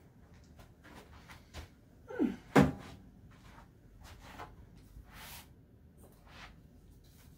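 Handling sounds and light knocks from someone moving about at a chalkboard. One sharp knock is the loudest sound, about two and a half seconds in, just after a short falling squeak. A brief hiss follows a few seconds later.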